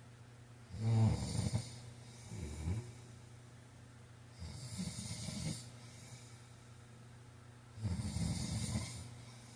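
A man snoring in his sleep: three snores about three and a half seconds apart, the first the loudest and followed by a shorter, softer breath sound.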